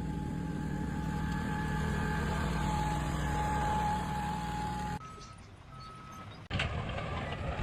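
A heavy vehicle's engine running steadily for about five seconds. After a cut there are two short beeps, then, about six and a half seconds in, a noisier stretch of clattering work sounds.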